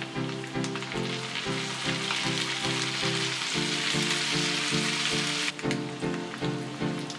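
Tofu sisig sizzling on a hot sizzling plate as lemon juice is squeezed over it, the hiss growing and then cutting off suddenly near the end. Background music with a steady beat plays throughout.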